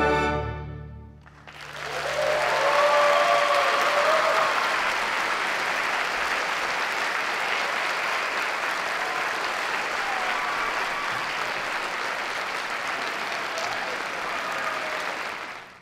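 An orchestra's final chord dies away, then audience applause starts about a second and a half in. It is steady clapping with a few whoops near its start, and it cuts off suddenly just before the end.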